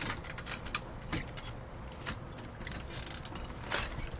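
Scattered clinks, knocks and rattles of drink bottles and trash being handled in a dumpster, with a brief rustle about three seconds in, over a low rumble.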